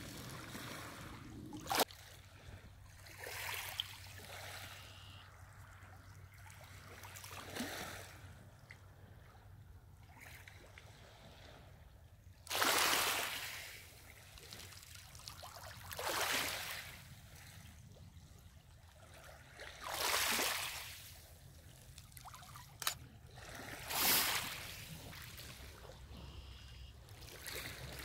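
Small lake waves washing ashore, a swell of water about every four seconds. Two short sharp clicks, one near the start and one near the end.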